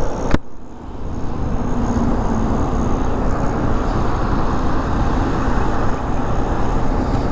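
A sharp click about a third of a second in, the helmet visor snapped shut, then a Honda Hornet 160R's single-cylinder engine running steadily under way, with wind and road noise rushing over the microphone.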